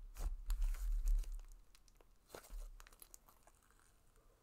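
Thick green clay butter slime squished and stretched by hand, giving a run of small crackles and pops in the first second and a half and one more about halfway, then going faint as it is pulled slowly.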